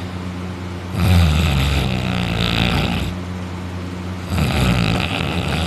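A man snoring loudly, asleep on his back with his mouth open. Two long snores of about two seconds each come about a second in and again near the end, over a steady low hum.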